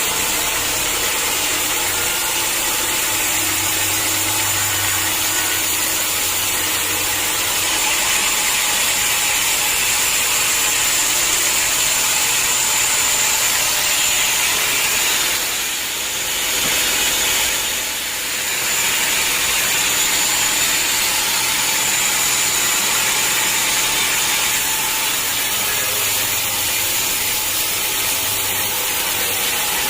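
Sawmill saw running steadily with a high whine over a low motor hum, sawing hard acacia logs into beams. The noise dips briefly twice just past the middle.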